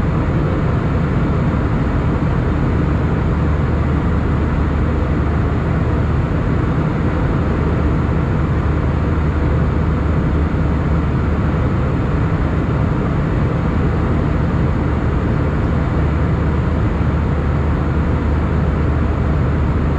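Steady cabin noise of an Airbus A320 in flight at altitude, heard from a window seat over the wing: the constant rush of the jet engines and airflow with a low, even hum underneath.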